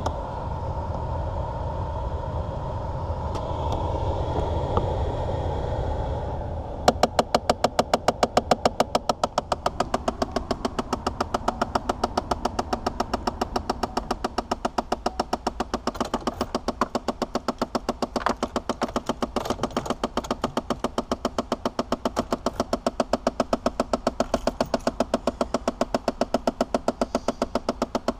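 2006 Chevy Impala's HVAC recirculation door actuator under the dash clicking rapidly and evenly, the sign of a failed actuator. The clicking starts about seven seconds in, after a low steady hum.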